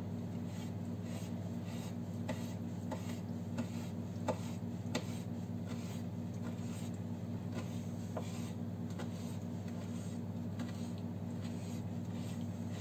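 Kitchen knife cutting red pepper on a wooden cutting board: light scraping with scattered soft knocks of the blade on the wood, over a steady low hum.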